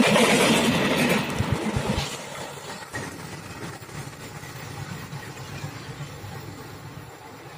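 Passenger train's carriages running past close by, wheels clattering on the rails. The loud rush drops off about two seconds in, leaving a fainter low rumble as the train moves away.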